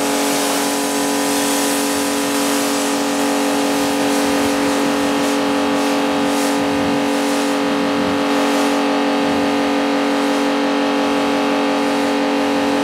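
Pressure washer (water blaster) running continuously, a steady hum with the hiss of water spraying onto a car's body.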